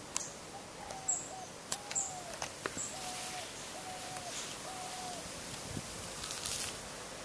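A bird calling a run of about six short, even hooting notes, roughly one a second, that stop about five seconds in. A few brief high chirps and some light clicks come in among them.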